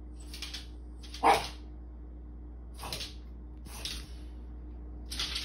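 French bulldog stamping its paws on a tile floor, the nails clicking and scrabbling in about five short bursts. One short bark comes a little over a second in and is the loudest sound.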